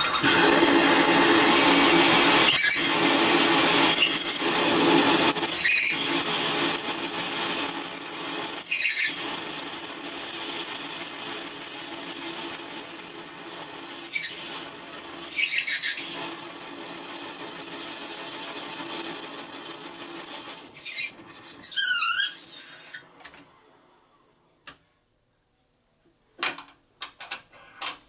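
Serdi 100 machine spindle driving a drill bit through an intake valve guide bore in a cast-iron Mopar 318 cylinder head, a steady cutting noise broken by repeated high squeals. About 22 seconds in it winds down and stops, and a few light metallic clicks follow near the end as the tool is handled.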